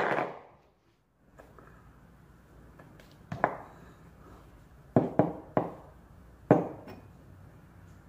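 Hard, short knocks and clinks from handling a metal sink faucet and its loose parts on a tabletop. About six separate knocks, three of them in quick succession around the middle.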